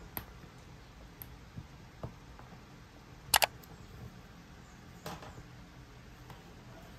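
Light taps of a wooden-handled rubber stamp dabbed on an ink pad, with a sharp double click about halfway through and a softer clatter later.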